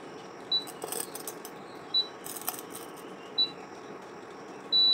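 Induction cooktop control panel beeping: a short high beep about every second and a half, three times, then a longer beep near the end, with faint clicks of handling in between.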